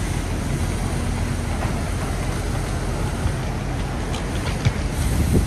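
City street ambience: a steady rumble of traffic on a busy road, with a couple of brief knocks near the end.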